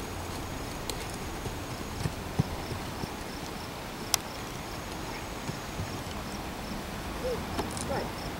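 Hoofbeats of a cantering horse on sand arena footing, with a few sharp clicks, the loudest about two and four seconds in.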